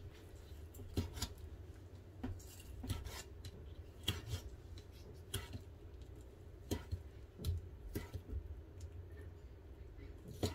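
Kitchen knife slicing dried mushrooms thinly on a wooden cutting board: irregular light taps of the blade striking the board, about one or two a second.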